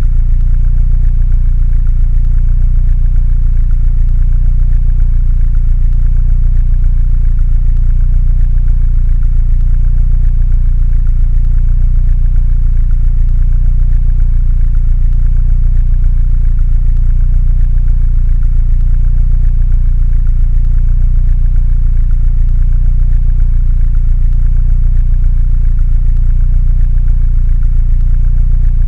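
Mini Cooper engine idling steadily, an even low-pitched running sound with no change in speed.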